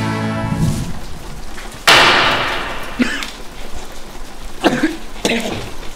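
The tail of rock music dies away, then a single loud slam about two seconds in rings off over about a second. A few short voice sounds follow near the end.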